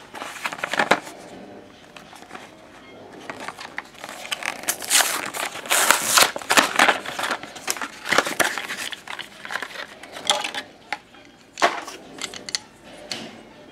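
Cardboard blister-card packaging being torn and peeled open by hand: a run of crackling, ripping bursts, busiest in the middle, then a few separate sharp rips near the end.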